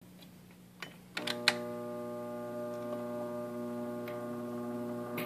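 Electric pickup of a Victor Electrola RE-45 radio-phonograph set down on a spinning 78 rpm shellac record: a few clicks as the needle lands, about a second in. Then a steady hum from the machine, with an occasional faint tick from the lead-in groove.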